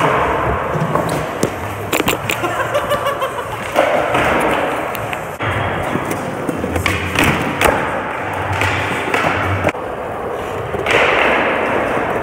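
Skateboard wheels rolling over a smooth concrete floor, the noise swelling and easing as the board picks up and loses speed, with several sharp clacks and thuds from the board.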